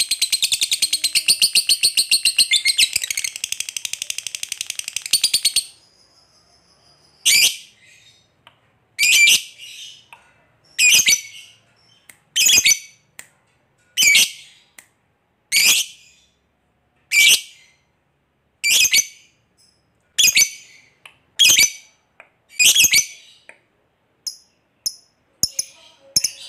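Lovebird calling: a long, fast chattering trill that stops about five seconds in, then a string of single loud, shrill calls, one every second and a half to two seconds. Near the end these give way to softer, quicker chirps.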